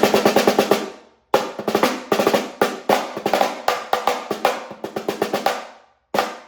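Stainless-steel-shelled darbuka snare drum (the JDS "Snarebuka") played with its snare wires engaged, giving a crisp, buzzy crack on each stroke. A fast roll ends about a second in. After a short gap comes a rhythmic pattern of hits lasting about four seconds, and a new phrase starts near the end.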